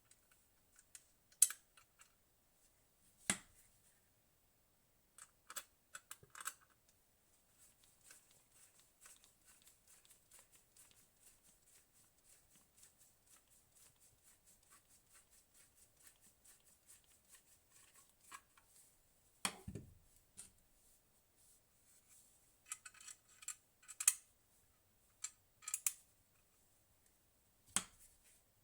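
Faint clicks and taps from hands working on a desktop gaming PC while an SSD is fitted. A run of quick, even ticks fills the middle, and a louder knock comes about two-thirds of the way through.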